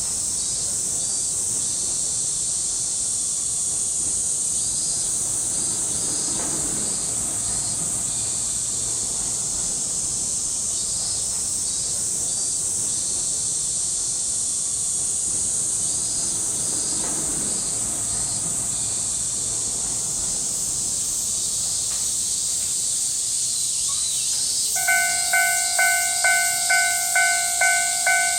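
A steady, loud drone of summer cicadas. About three seconds before the end, the level crossing's electronic warning bell starts ringing, about two dings a second, signalling an approaching train.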